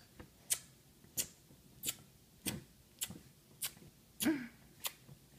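A child blowing kisses: a run of sharp lip-smacking clicks, about three every two seconds, one with a short vocal "mwah" about four seconds in.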